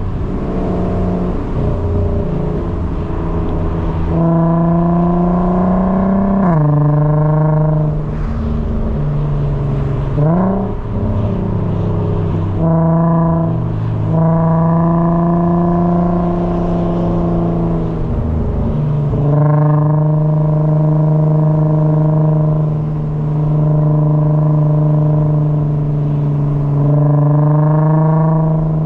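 A car engine driven through the gears: the revs climb, drop sharply at gear changes a few times, and hold steady at cruising revs in between.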